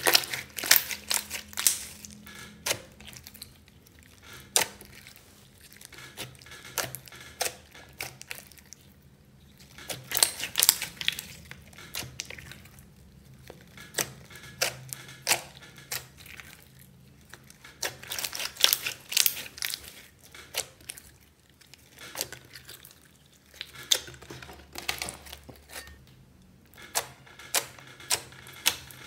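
Glossy slime being squeezed, folded and pressed by hand, giving sharp wet clicks and pops in flurries with quieter spells between.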